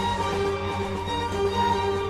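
Background music with a bowed-string melody.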